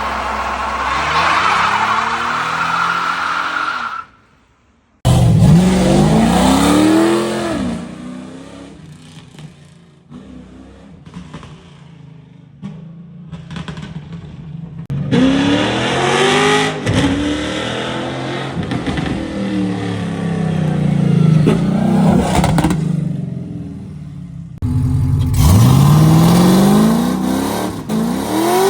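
Car engine accelerating hard several times, its pitch climbing and then dropping back between pulls. The sound is in separate cut-together clips, with a sudden second of near silence about four seconds in.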